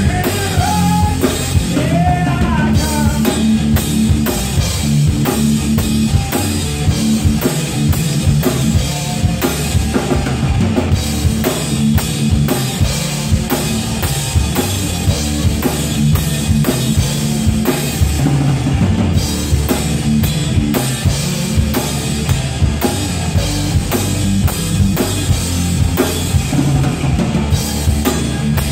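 Live stoner-rock band playing an instrumental passage: distorted electric guitars over a steady drum-kit beat with bass drum and snare.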